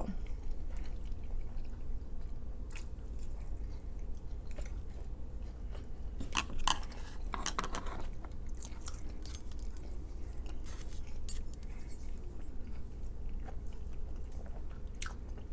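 Mouth sounds of someone chewing and crunching food, with scattered soft clicks of a utensil against a plate or container. A louder cluster of crunches and clicks comes about six to eight seconds in.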